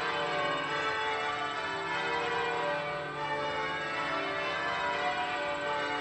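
Bells in the Washington National Cathedral's bell tower ringing: many bells sound one after another, their tones overlapping and hanging on.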